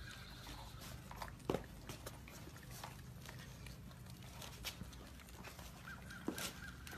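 Siberian husky puppies licking at an ice cream cone, with sharp wet clicks and smacks. Near the end a puppy gives one thin, high whine lasting about a second.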